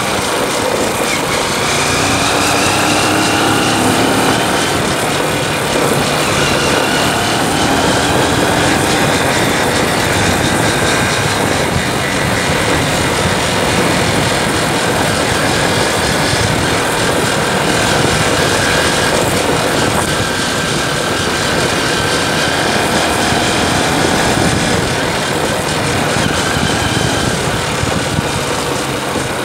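Motorcycle engine running under way, its note rising and falling gently with the throttle, over a steady rush of riding noise.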